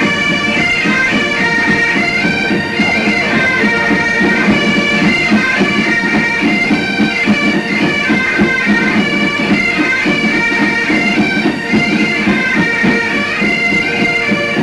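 Highland bagpipes playing a march tune, the melody stepping from note to note over steady drones.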